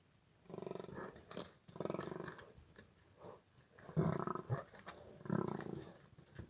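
An animal calling in four rough, pulsing bouts, the loudest about four seconds in.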